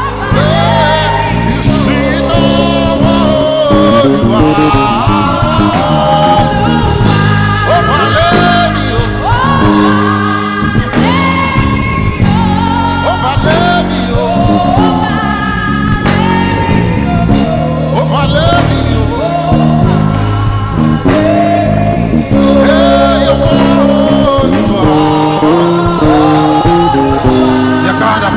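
Gospel worship music: a singing voice over bass and keyboard accompaniment.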